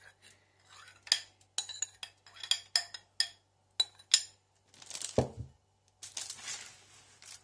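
A metal utensil clinking and scraping against a ceramic mixing bowl as a minced meat and vegetable mixture is scraped out into a baking form: a series of sharp clinks, roughly two a second. A dull thump follows about five seconds in, and then a soft rustling near the end.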